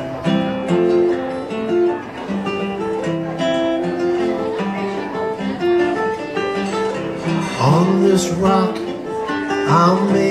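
Steel-string acoustic guitar playing an instrumental intro, with notes picked in a repeating pattern. A man's singing voice comes in over the guitar about three quarters of the way through.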